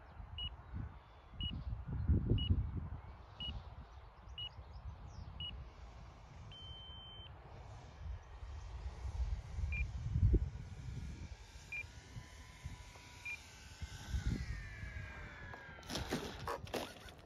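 Short electronic beeps about once a second from the RC transmitter, then one longer beep and a few sparser ones, over gusts of wind buffeting the microphone. In the second half a faint whine falls in pitch: the electric motor of the Durafly Bf 109 model.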